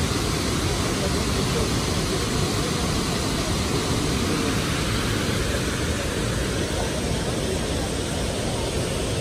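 Steady rushing roar of Victoria Falls, the Zambezi River's curtain of water pouring into the gorge.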